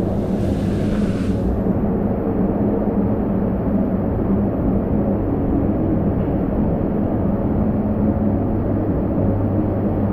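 Steady low rumble of a ride down an enclosed water slide tube, with a brief hiss of rushing water in the first second or so.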